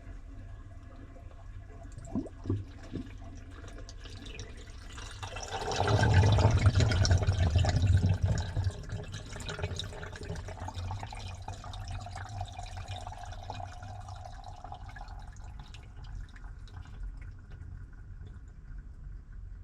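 Washing machine in its wash cycle, water rushing and sloshing in the drum. The sound is loudest from about five to nine seconds in, then settles to a steadier, quieter wash. Two short knocks come about two seconds in.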